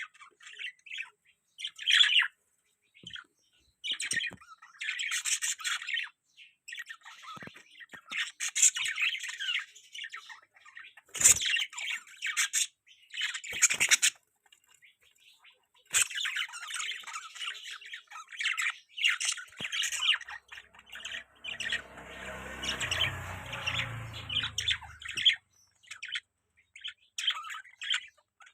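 Pet budgerigars chattering with rapid, scratchy chirps and squawks in quick broken runs. About three-quarters of the way through, a few seconds of low rumbling noise sit under the calls.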